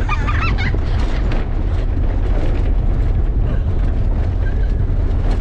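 Small pickup truck driving on a rough road: a steady rumble of engine, tyres and wind, with a few faint knocks and rattles in the first second or so.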